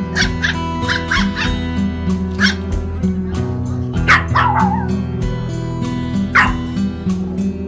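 A puppy yipping and barking in short high-pitched calls, about seven over a few seconds, one longer with a falling end about four seconds in, over steady background music.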